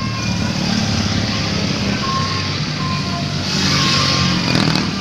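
A vehicle's engine running, with a string of short, faint beeping tones at shifting pitches and a brief hiss about three and a half seconds in.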